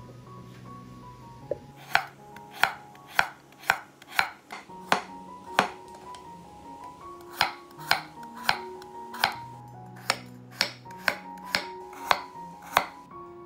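Chef's knife slicing whole raw carrots into rounds on a wooden cutting board: a sharp knock of the blade striking the board with each cut, about one to two cuts a second, starting about two seconds in with a short pause midway.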